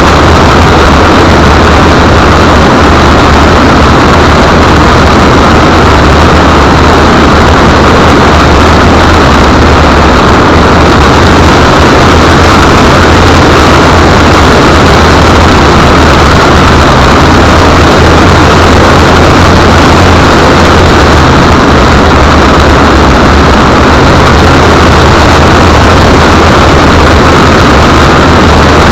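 A Land Rover Discovery's engine running, heard through a keyring camera mounted under the vehicle. The sound is a constant, loud, overloaded wash of noise over a steady low hum, with no change.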